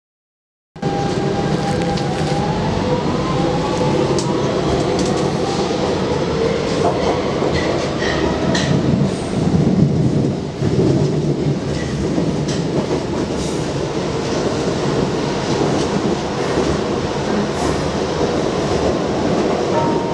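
Subway train running, heard from inside the carriage: a steady rumble with a rising whine over the first few seconds as it picks up speed, and scattered clicks from the rails. Near the start the sound cuts out completely for under a second, where the camera stopped recording to take a still photo.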